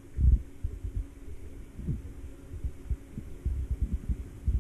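Muffled, irregular low thumps and knocks over a faint steady hum: water slapping and bumping against a camera held at the surface of a swimming pool.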